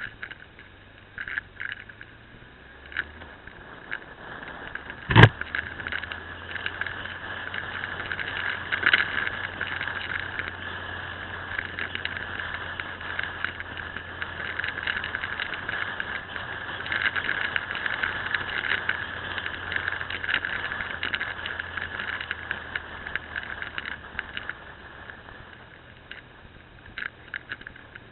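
Motorcycle running along a winding mountain road, heard from a camera mounted on the bike: a steady low engine hum under crackly wind and rattle noise. A single sharp knock about five seconds in.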